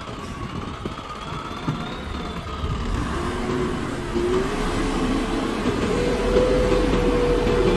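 TAIAN TLT30-8 telehandler's diesel engine running as the machine drives toward the listener, growing louder, with a whine that rises in pitch about halfway through and then holds steady.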